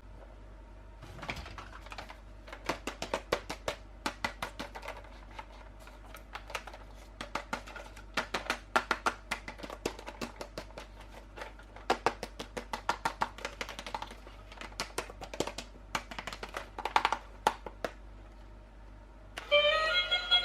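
Quick runs of light clicks and taps, in bursts lasting a few seconds each, from hands unboxing and handling a plastic toy and its packaging. Music starts up near the end.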